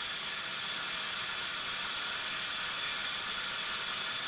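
Kobalt XTR 24V brushless impact driver hammering steadily, held continuously on a bolt as it drives it down to full tightness.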